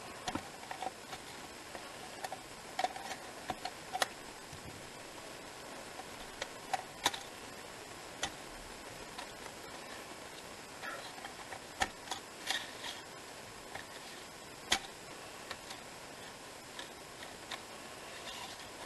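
Light, irregular taps and clicks of craft work on a desk: a foam ink applicator dabbed on card and an ink pad and paper pieces being handled, over a faint steady hiss.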